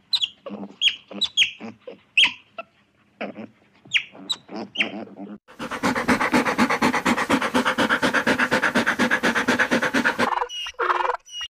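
Otters giving short, high chirps and squeaks for about five seconds. Then several dogs pant fast and evenly for about four seconds, with a few short calls near the end.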